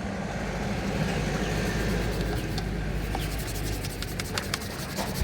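Small stiff brush scrubbing car window glass, its strokes turning into a quick run of scratchy rubs in the second half, over a steady low hum.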